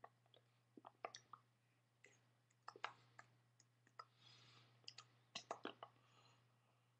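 Faint, irregular soft clicks and taps of hands and mouth while signing in Italian Sign Language, over a steady low hum.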